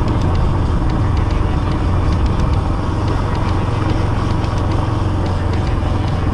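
Motorcycle engine running steadily while riding at an even speed.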